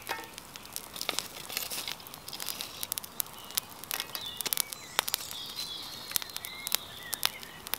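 Campfire crackling, with irregular sharp pops and snaps from the burning wood. Faint bird calls in the background.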